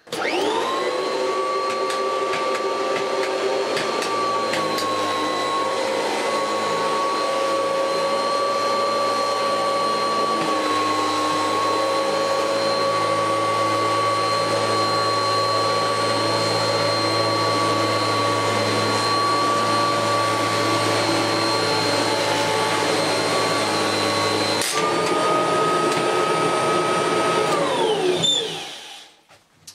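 Kirby Heritage 2 upright vacuum cleaner, fitted with a dirt meter, switched on and making one slow pass over carpet. Its motor winds up with a rising whine and runs steadily, steps up in pitch about 25 seconds in, then winds down with a falling whine near the end as it is switched off.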